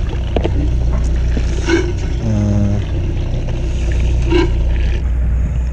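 Steady low drone of a fishing boat's engine, with a few light clicks from plastic tackle boxes being handled and opened.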